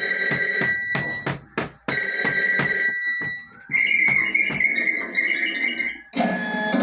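Electronic ringing tones in repeated bursts, like a ringtone, with short breaks and clicks between them.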